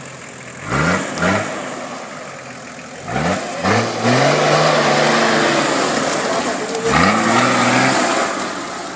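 Off-road vehicle's engine revving: two short blips about a second in, then rising again and held at high revs for several seconds. It revs up once more near the end before dropping back toward idle.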